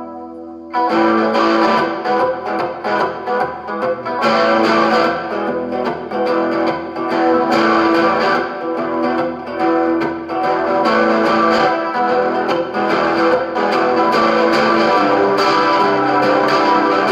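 Electric guitar played through a 1960s Supro Super amplifier: a ringing chord fades out, then from about a second in a run of picked single notes and strummed chords.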